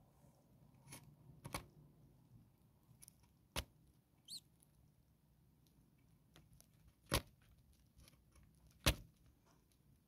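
A starling chick gives one brief, high begging peep about four seconds in, among a few sharp clicks; the loudest two clicks come about seven and nine seconds in.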